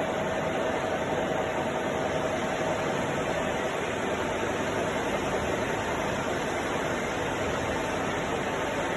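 Deckel FP4A milling machine running steadily: an even hiss with a faint steady whine.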